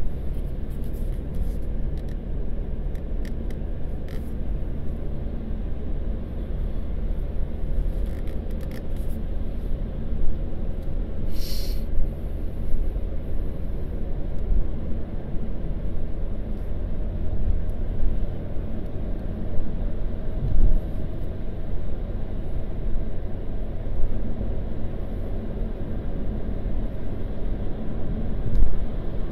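Steady low road and engine rumble inside a moving car's cabin, with a brief hiss about twelve seconds in.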